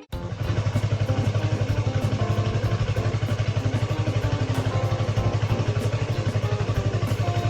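Yamaha YZF-R3 parallel-twin engine running steadily with an even pulsing beat.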